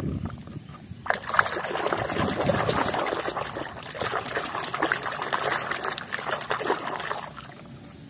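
Muddy water splashing and swishing in a plastic tub as a hand scrubs a plastic toy under the surface. It starts about a second in and dies down shortly before the end.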